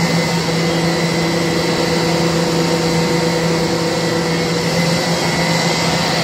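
A twin-screw corn puff extrusion line running: machinery hum and whir with a few held tones.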